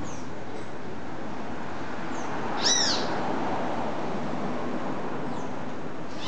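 A bird giving short, arching squawks: a loud one about two and a half seconds in and another near the end, with a few fainter ones between. Under them runs a steady hum of background noise.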